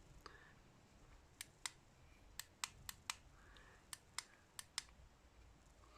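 Near silence broken by about ten faint, sharp clicks at uneven intervals, several coming in quick pairs.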